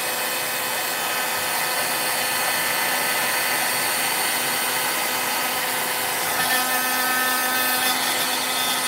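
Heat gun running steadily, blowing hot air. Something rattles inside it, which its owner takes as a worrying sign since the tool is brand new.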